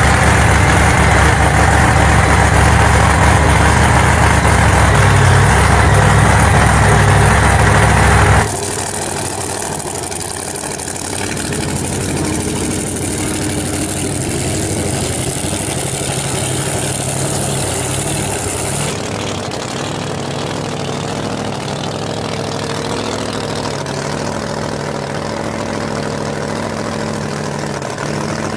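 Supercharged 522 cubic-inch Noonan Hemi V8 with a screw blower, in a 1959 DeSoto pro mod, running loud and steady. About eight seconds in it cuts to the engine idling more quietly and steadily.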